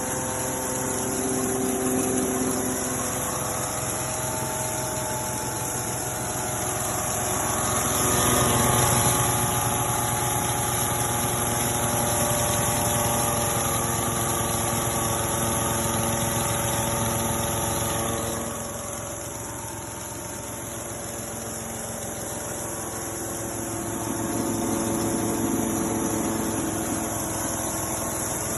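Engine-driven rice husk machine (Type 40) running steadily. Its speed and loudness rise and fall: louder about a third of the way in, easing off past the middle, and picking up again near the end.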